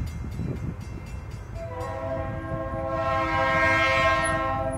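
Diesel freight locomotive sounding its multi-note air horn in one long chord that starts a little under two seconds in, over the low rumble of its engine. A bell rings rapidly for the first second or so.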